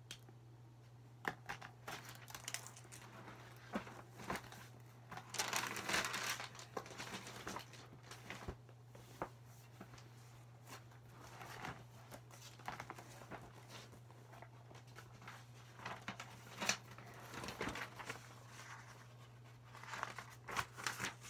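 Paper rustling and crinkling in short spells, with scattered light clicks and taps, from handling a spiral sketchbook and markers while drawing; the longest spell of rustling comes about five seconds in.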